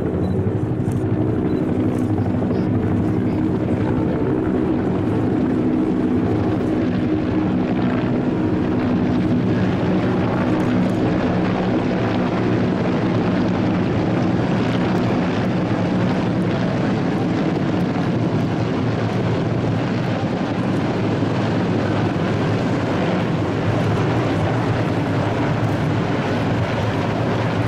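Formation of helicopters (UH-1J utility, AH-1S attack and OH-6 observation helicopters) flying overhead: a steady, continuous rotor and turbine drone with a low multi-pitched hum.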